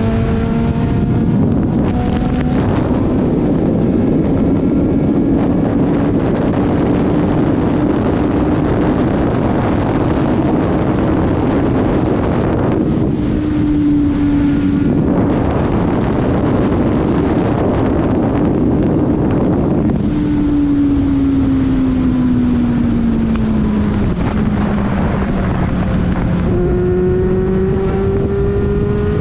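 Kawasaki Z750 motorcycle's inline-four engine running under way at a steady cruising speed, with heavy wind rush on the microphone. About two-thirds through, the engine note falls over several seconds as the bike slows; near the end it jumps up and climbs again under acceleration.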